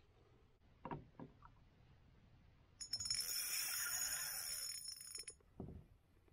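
Spinning reel's drag buzzing for about two and a half seconds, starting about three seconds in, as a hooked northern pike takes line during the fight; a couple of faint short sounds come before and after it.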